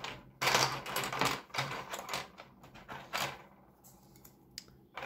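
Small hard-plastic marble-run pieces clicking and clacking against each other and the tabletop as they are picked up and sorted by hand, busiest in the first second and again around three seconds in.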